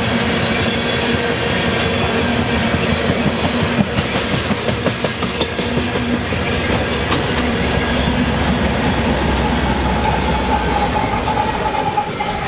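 Freight train rolling past at close range, its steel wheels clattering over the rail joints in a loud, steady din. A high ringing tone comes in about two-thirds of the way through and holds to the end.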